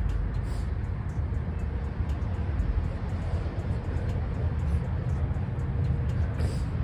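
Wind buffeting the microphone: a steady low rumble that flickers in level, with two brief hisses, one about half a second in and one near the end.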